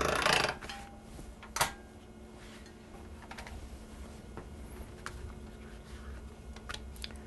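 Hand-cranked pasta machine rolling a sheet of egg-noodle dough on setting number one: a sharp click about a second and a half in, then soft scattered clicks and taps over a faint steady hum.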